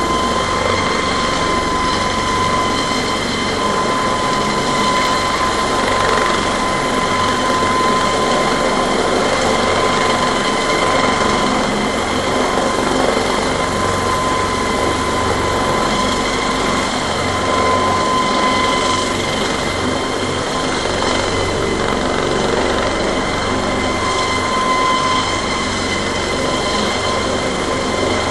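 Cargo helicopter hovering with an underslung load: steady, loud rotor and turbine noise with a constant high-pitched whine that grows slightly stronger and weaker.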